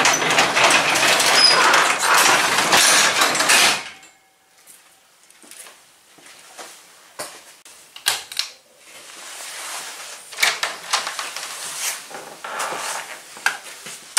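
Overhead garage door pulled down by hand, running down its tracks for about four seconds and then stopping. After it come quieter clicks and rustling, with a sharp click about eight seconds in from a shop light's pull-chain.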